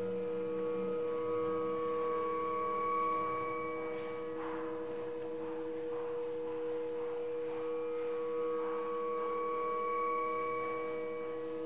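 Improvised experimental music on handmade instruments: a drone of several steady, layered tones held without a break, with faint scratchy textures coming in briefly about a third of the way in and again later.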